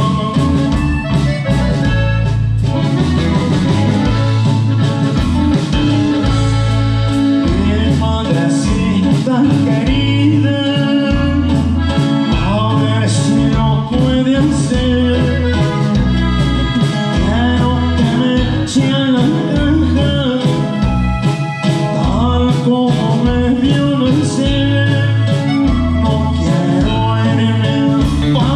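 Norteño band playing live: button accordion carrying the melody over bajo sexto, electric bass and drums, with a steady, even beat.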